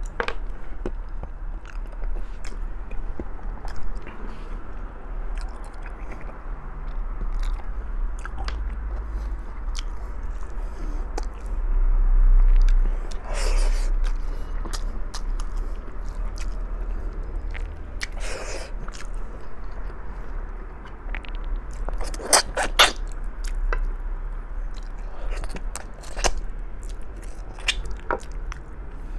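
Close-miked chewing and biting of braised pork trotters with rice, wet smacking with frequent small clicks and a few louder crunches partway through, over a steady low hum.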